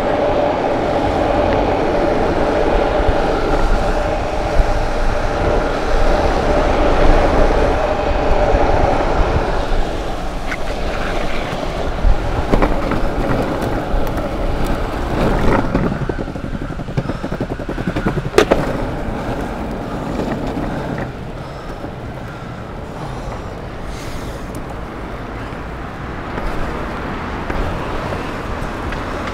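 Longboard wheels rolling over pavement, a loud steady rumble with wind on the microphone, louder for the first ten seconds and quieter after about twenty. A few sharp knocks in the middle, typical of the wheels crossing pavement joints or cracks.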